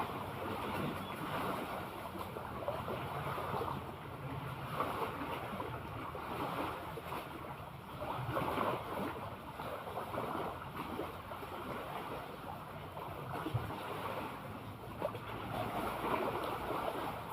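Sea waves washing and lapping in irregular swells, with wind buffeting the microphone.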